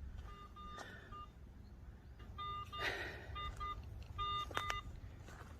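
Metal detector giving a run of short target beeps, all at the same mid pitch, repeated several times with a brief rustle about three seconds in.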